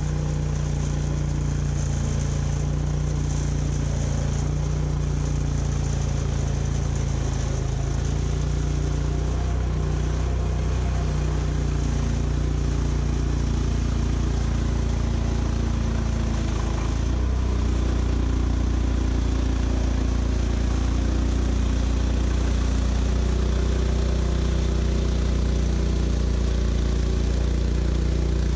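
Portable band sawmill's engine running steadily under way through a cut, its note shifting and growing a little louder about 17 seconds in.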